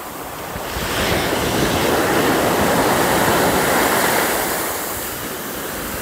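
A sea wave breaking and washing up the sand, swelling about a second in and easing off near the end, with wind buffeting the microphone.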